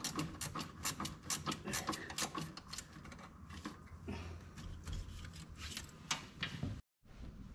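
Hand ratchet wrench clicking as nuts are run down tight while fitting a battery. Quick clicks come about five a second for the first three seconds, then slower, scattered clicks.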